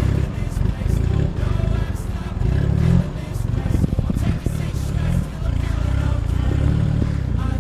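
A small off-road 4x4's engine revving up and down as it crawls over rough ground, with knocks and clatter from the vehicle working over rocks.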